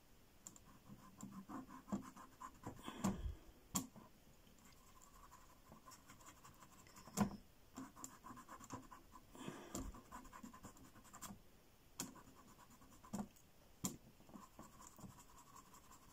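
Small paintbrush scumbling acrylic paint onto a painted board: faint dry scratching and scrubbing of the bristles, with scattered light taps and clicks.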